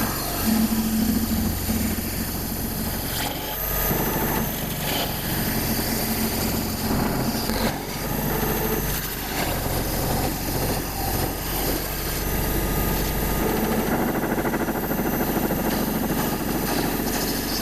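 CNC router spindle running and its cutter taking a light facing pass, with a steady hum and high whine under scattered cutting crackle, and the vacuum hold-down pump running.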